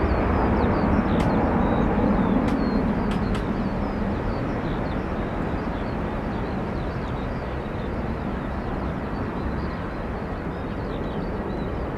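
Airbus A330 twin-jet climbing away after takeoff: a broad jet-engine rumble that fades slowly as the aircraft recedes. Faint high chirps run over it.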